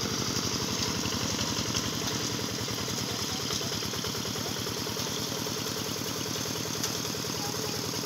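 Small engine running steadily at an even, low idle-like pace, its firing beat regular and unchanging throughout.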